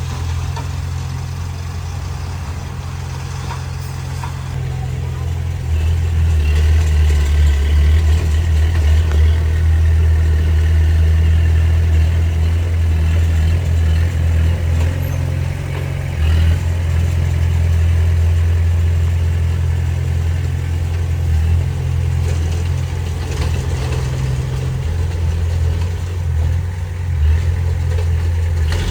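Diesel engine of heavy earthmoving machinery running with a steady low hum, getting louder about six seconds in as it works harder.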